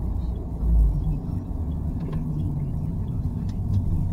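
Low rumble of a car driving, engine and tyre noise heard from inside the cabin, with a brief low thump a little under a second in.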